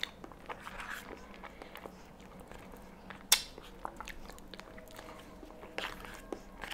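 Close-miked mouth sounds of eating soft banana pudding, with small clicks of a plastic spoon scooping in a plastic cup and one sharp click about halfway through.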